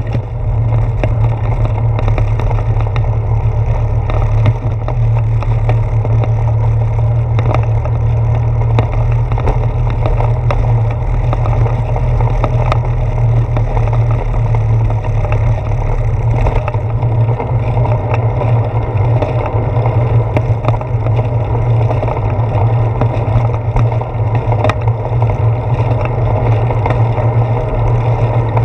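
Bicycle riding heard through a handlebar-mounted GoPro Hero 4: a steady low rumble of tyre and handlebar vibration with scattered knocks from bumps, as the bike crosses a wooden boardwalk and then a paved path. The rumble eases slightly just over halfway through.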